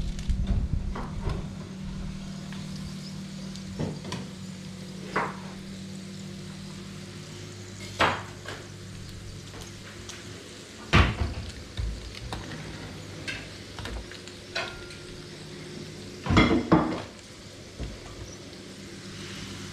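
Clatters of a metal oven tray and utensils as freshly roasted pork ribs are handled, with hot rendered fat sizzling. A steady low hum stops about seven seconds in, and the loudest clanks come near the middle and about two thirds of the way through.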